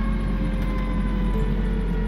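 Fire truck running on the road with a steady low engine rumble, a siren tone slowly winding down in pitch over it, and background music.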